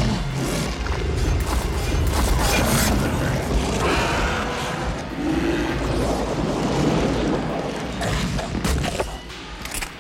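Film soundtrack: dramatic score mixed with heavy low booms and a steady deep rumble, with several sharp hits. The loudness dips shortly before the end.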